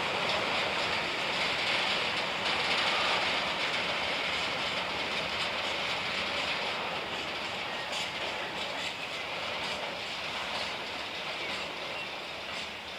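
A train running past on the rails, a steady rumble and hiss of wheels on track with faint clicks, slowly fading as it draws away.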